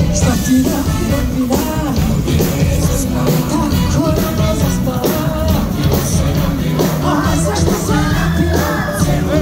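A pop-folk song performed live through a stage sound system: a woman singing lead into a microphone over a loud, steady, beat-driven accompaniment.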